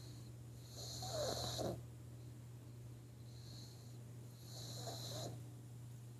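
Pug snoring loudly in its sleep: two long snores, one about a second in and another about four and a half seconds in, with a fainter breath between them.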